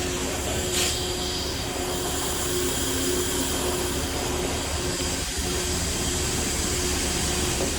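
Steady machinery drone with a low rumble and a constant hum, with a brief scrape about a second in.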